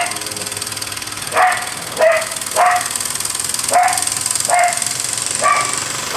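A dog barking repeatedly, about seven short barks at uneven intervals, over a steady high-pitched hiss.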